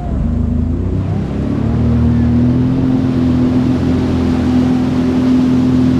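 Sea-Doo personal watercraft engine running steadily at low speed. It rises a little in pitch and level during the first two seconds, then holds an even note.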